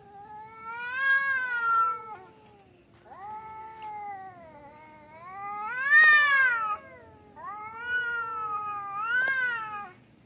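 Tomcats caterwauling in a territorial standoff: three long, drawn-out yowls that rise and fall in pitch, the loudest swelling about six seconds in.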